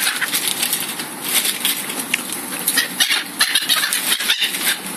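A flock of black-headed gulls calling close by, with many short calls overlapping.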